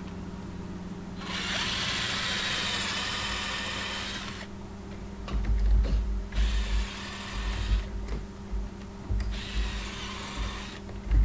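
Cordless 18V drill boring shelf-pin holes in a pine board through a drilling jig, three times: a first run of about three seconds, then two shorter ones of about a second and a half each. Low bumps come between the later holes.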